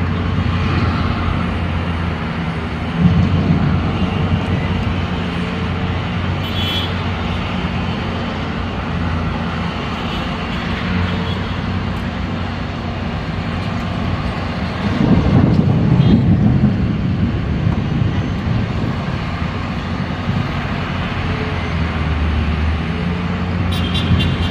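Steady vehicle engine and road noise with a low hum, swelling louder briefly about three seconds in and again for a couple of seconds past the middle.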